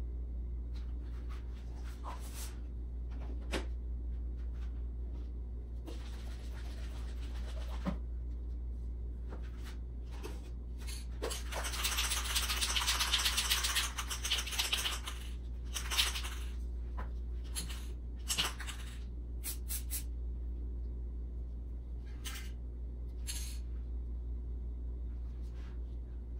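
An aerosol spray can rattling as it is shaken, then giving a few short hisses as it is sprayed onto wet epoxy to open cells in the surface, over a low steady hum.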